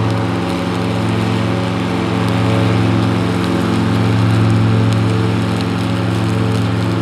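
Kubota three-cylinder diesel engine of a Grasshopper 721D front-deck zero-turn mower running steadily as the mower pushes through dry brush, its loudness swelling and easing slightly, with light crackling of twigs over the engine.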